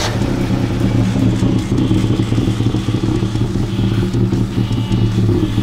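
Old pickup truck's engine running steadily right after being jump-started.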